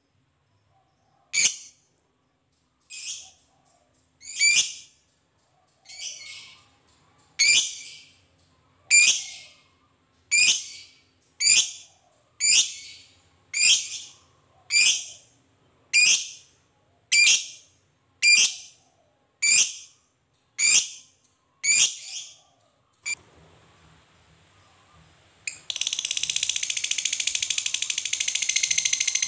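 Masked lovebird giving a string of about seventeen short, sharp, high calls about a second apart (the 'ngetik' ticking). Near the end it breaks into a loud, long, rapid chattering trill (the 'ngekek').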